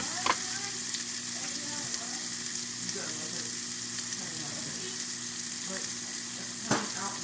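Beef burger patties frying in a hot skillet, a steady sizzling hiss, with two sharp pops of spattering grease, one just after the start and one near the end.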